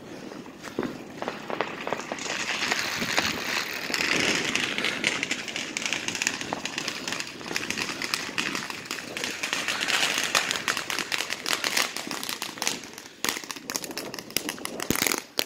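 Fireworks crackling: a dense, continuous run of small pops and crackles, thickest near the end.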